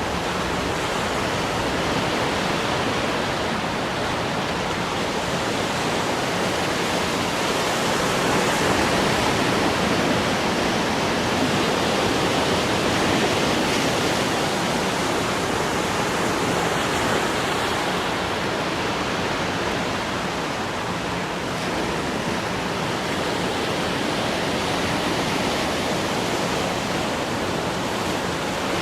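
Sea waves breaking and washing on the shore in a steady rush, swelling slightly now and then.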